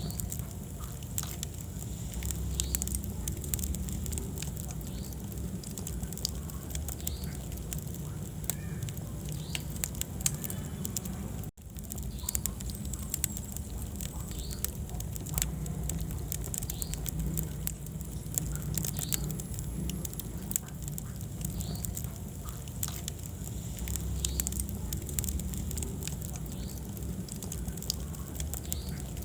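Wood fire burning in a fireplace, crackling with many sharp pops over a low rumble of the flames. The sound cuts out for an instant about a third of the way through.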